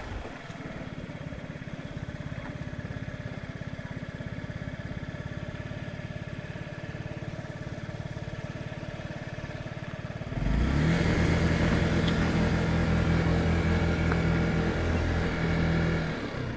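Honda Giorno's small water-cooled single-cylinder scooter engine ticking over at a steady, even pulse as the scooter rolls to a stop. About ten seconds in, the throttle opens and the engine note steps up sharply louder and holds steady as the scooter pulls away.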